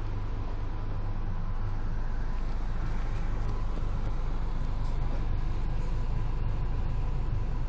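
Steady low hum inside a stationary first-class railway passenger coach, with a faint steady high tone over it and a few light ticks in the middle.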